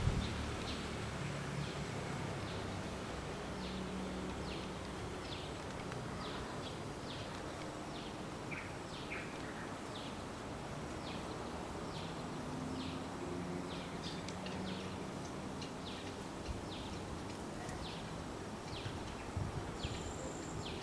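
Outdoor ambience: short high chirps, each a quick falling note, repeating about every half second to a second over a steady low hum and hiss.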